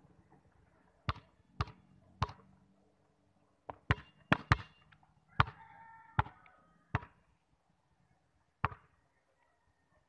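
Basketball bouncing on a concrete court: about a dozen sharp, irregularly spaced thuds, clustered in the middle.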